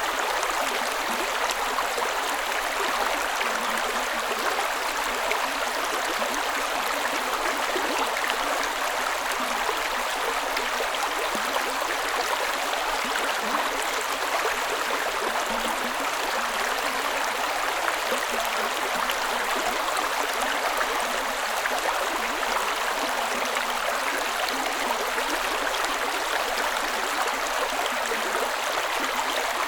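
Creek ambience: water running steadily over stones, a continuous bubbling rush with no pauses.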